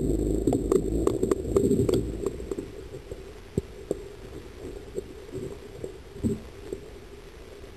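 Muffled underwater sound picked up by a submerged point-and-shoot camera's microphone: a dull low rumble with scattered clicks and knocks from water and handling. It is louder for the first two seconds, then quieter.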